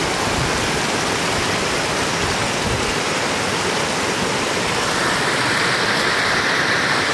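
Floodwater running off a road's edge into a flooded field: a steady rushing, a little louder and hissier from about five seconds in.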